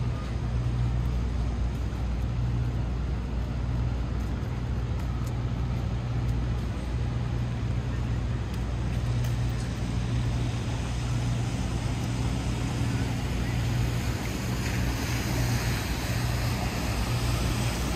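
Rainy city street ambience: rain and traffic noise over a constant low hum.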